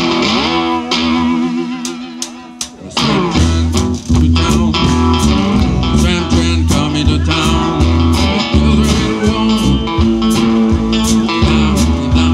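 Live blues band playing, led by homemade cigar box guitars over bass and drums. The bass drops out for about two seconds, then a sliding guitar note brings the full band back in about three seconds in.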